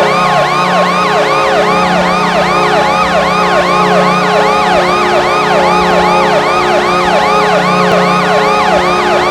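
Ice hockey arena goal horn blowing a steady, loud chord, with an electronic siren yelping rapidly over it, about three rises and falls a second.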